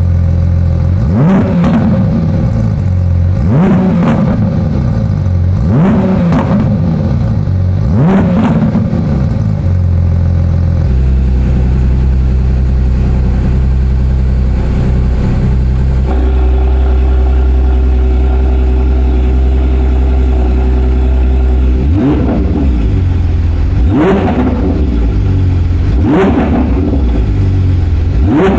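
Porsche 992 GT3's 4.0-litre flat-six, fitted with a Soul Performance Competition valved exhaust, being blipped with the car standing: a quick rev up and back down about every two seconds. About eleven seconds in it settles to a steady note, and about twenty-two seconds in the blips start again.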